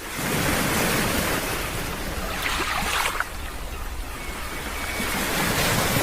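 Steady rush of water falling at a 90-foot waterfall, a continuous even roar, easing slightly about halfway through.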